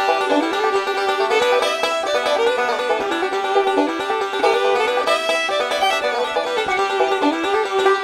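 Instrumental background music carried by a plucked string instrument, a steady stream of quick notes.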